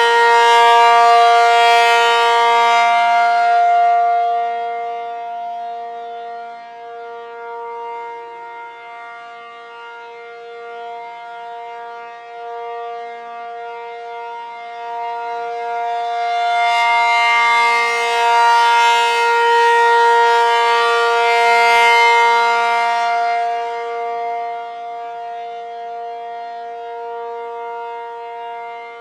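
Outdoor warning siren sounding a steady, unchanging tone. It is loud at first, fades, swells again past the middle and fades once more as the rotating siren sweeps its sound around.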